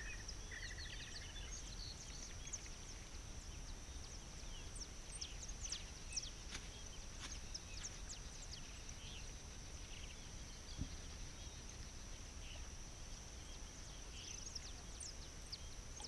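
Quiet outdoor ambience: a steady, high-pitched insect trill with many short bird chirps scattered over it, and a brief run of rapid bird notes near the start.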